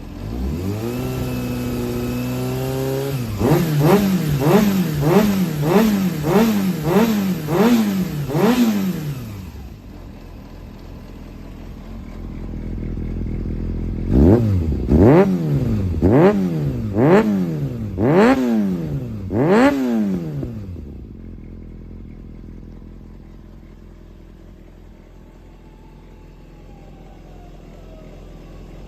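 Yamaha XJR400's air-cooled inline-four engine running and being revved with the throttle. First comes a run of about ten quick blips, two a second. It drops back to idle, then gives six sharper blips about a second apart and settles to a quieter idle. The seller's listing describes the engine as free of abnormal noise.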